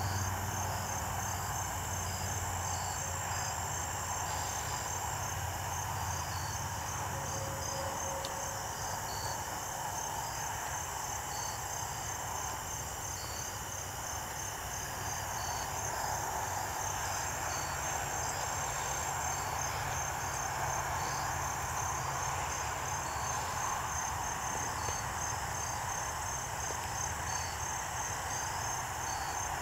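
Evening insect chorus of crickets chirping: a high call in rapid, even pulses runs throughout, with a second insect's slower, irregular chirps just below it, over a steady low background rumble.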